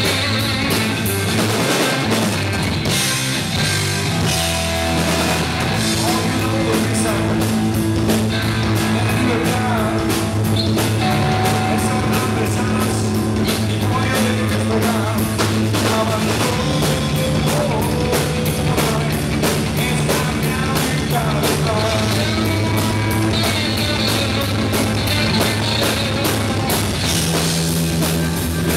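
Live rock band playing loudly: distorted electric guitar and a drum kit, with a man singing into the microphone.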